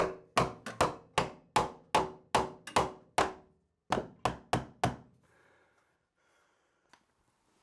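Hammer blows driving nails into an overhead wooden joist, securing a PVC vent pipe: a fast run of about a dozen sharp strikes, a short pause, then five more. Some strikes ring briefly.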